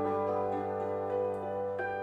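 Concert cimbalom played solo with mallets: a low bass note rings on steadily while a few single notes are struck softly above it.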